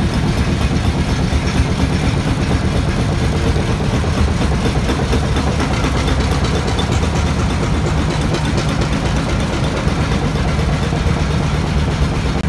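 Large Fairbanks-Morse two-cylinder stationary engine running steadily at a slow idle, its flywheel turning.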